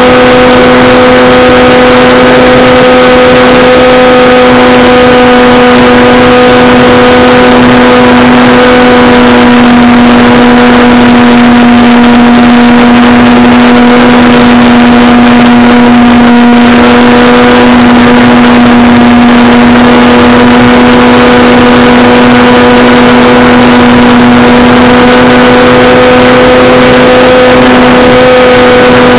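Electric motor and propeller of a Durafly Tidewater RC seaplane in flight, heard loud from its onboard camera: a steady buzzing drone that holds one pitch throughout, over a constant rush of air noise.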